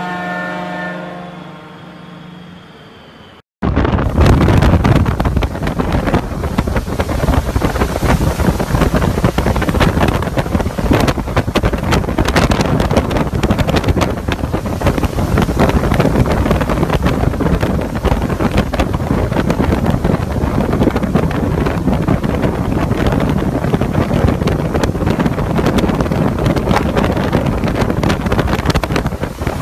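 Hurricane-force wind and driving rain rushing and buffeting against the microphone, a loud continuous roar that starts abruptly a few seconds in. Before it, a steady humming drone with overtones fades out.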